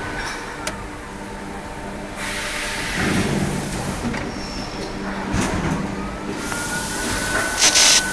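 Plastic injection molding machine running through its cycle: a steady machine hum with swells of mechanical noise as the mold works, and a whine that rises and then holds. Near the end come two short, loud bursts of hiss.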